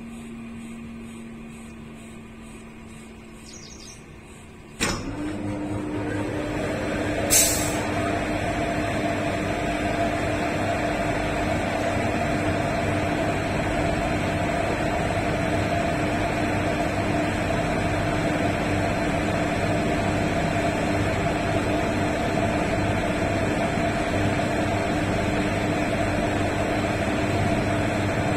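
WAG5 HA electric locomotive cold start: after a faint steady hum, a sharp bang about five seconds in as the locomotive switches on. Its auxiliary machines then whine up to speed over a couple of seconds, with a short burst of air hiss, and settle into a loud steady hum.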